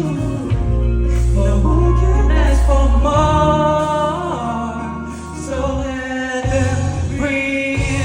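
Live pop song: a singing voice carried over instrumental backing music.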